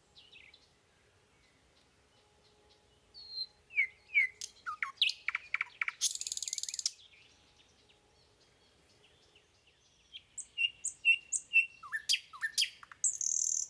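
Songbird singing: quick chirps and short downslurred whistles in irregular runs, with a dense buzzy trill about six seconds in and again near the end.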